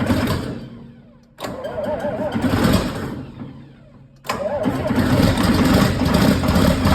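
John Deere 4850's six-cylinder diesel being cold-started on starting fluid after sitting all winter. The starter cranks in two bursts that die away, then a little after four seconds the engine catches and keeps running.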